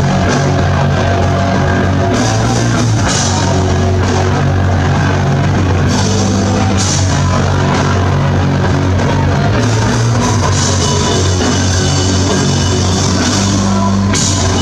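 Live hardcore punk band playing loud, with drums and guitars, recorded from inside the crowd.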